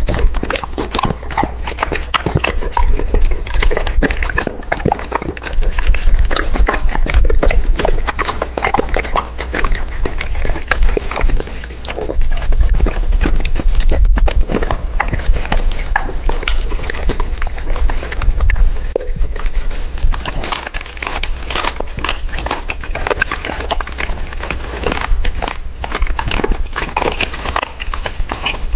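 Doberman chewing crunchy food close to the microphone: a dense, irregular run of loud crunches and bites over a low rumble.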